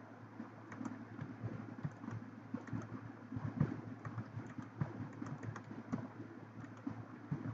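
Computer keyboard typing: a run of quick, irregular key clicks over a low steady hum.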